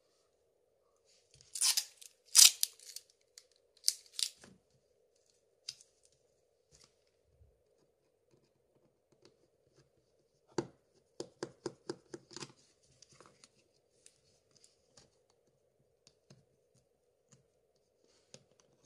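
Small precision screwdriver undoing the screws of a Samsung Galaxy S3's back frame, with handling noise. A few loud scraping rustles come in the first few seconds, then a quick run of sharp clicks about ten seconds in, over a faint steady hum.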